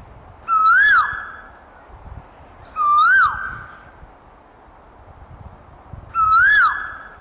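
Asian koel calling: three loud whistled notes a few seconds apart, each rising in pitch and then dropping.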